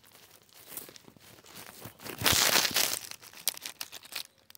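Dry plant stalks and twigs rustling and crackling against a handheld phone, with a louder rustle about halfway through and a few sharp snaps near the end.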